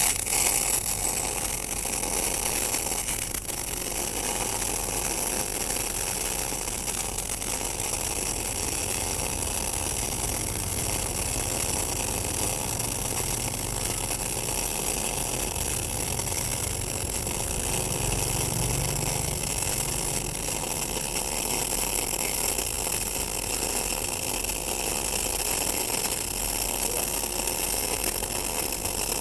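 MIG welding arc from a TOPGUN MIG 315VS welder on single-phase power, burning steadily on 30 mm thick steel plate with the torch weaved from side to side.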